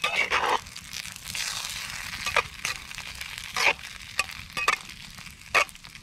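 Stew-like pot pie filling sizzling and bubbling in a cast-iron Dutch oven over a campfire, with a low hiss and irregular sharp pops and crackles.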